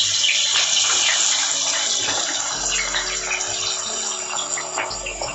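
Freshly added sliced onions sizzling and crackling in hot oil as they start to deep-fry, the hiss slowly fading. Soft background music with held notes comes in about halfway.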